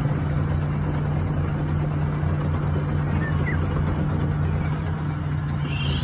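Heavy diesel dump truck's engine running steadily, a low even hum, while the truck tips its load of soil.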